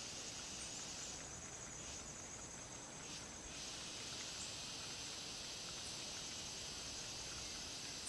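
Steady, high-pitched drone of an insect chorus, part of it falling silent for a few moments between about one and three and a half seconds in.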